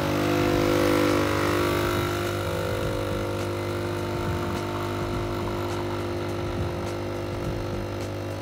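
Gestreo 15-bar espresso machine's pump running with a steady buzzing hum while it brews espresso into the cup, a little louder in the first couple of seconds.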